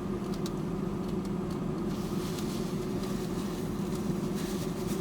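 Steady hum of a parked car idling with its air conditioning running, heard inside the cabin, with a few faint clicks.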